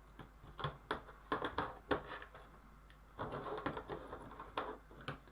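A string of irregular light clicks and taps as small objects are handled and set down on a work desk, with some brief rustling between them.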